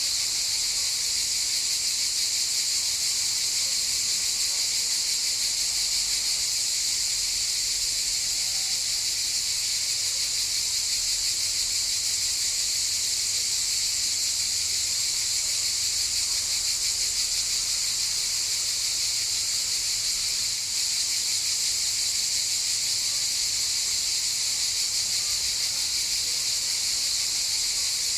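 A chorus of cicadas: a steady, unbroken high-pitched buzz that neither pulses nor pauses.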